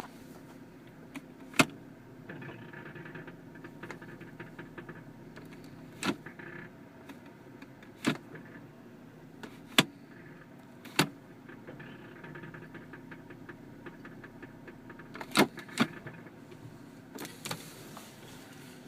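2012 Dodge Journey with its 2.7 L V6 running steadily, broken by about seven sharp, irregularly spaced clunks and a few short rasping stretches. These are the strange noises the owner hears when steering, driving and reversing, and cannot trace.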